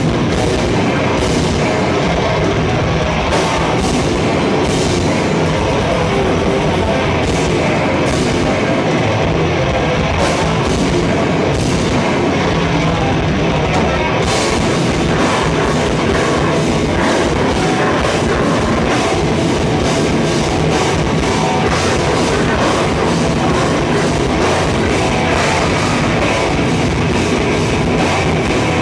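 Heavy rock band playing live and loud: distorted electric guitars over a pounding drum kit, dense and unbroken throughout.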